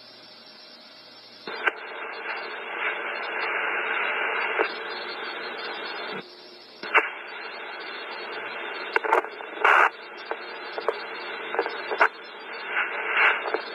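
Police radio scanner with a keyed channel carrying no voice: static hiss that comes on with a click after a second and a half, cuts out briefly about six seconds in and comes back, with scattered pops and clicks.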